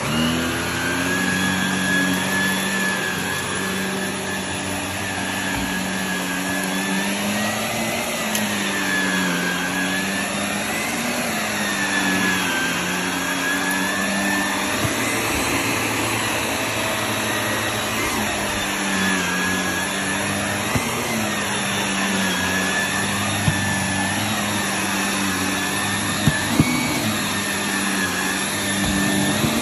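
Shark NV380 Navigator corded upright vacuum running on carpet, its motor hum and whine wavering up and down in pitch every couple of seconds as it is pushed. A few sharp clicks near the end.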